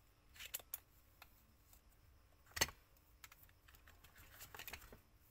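Light plastic clicks and taps from the screwdriver's small cylindrical bit cases being handled and set into the cardboard box tray, with one sharper click a little over halfway through and a quick run of clicks near the end.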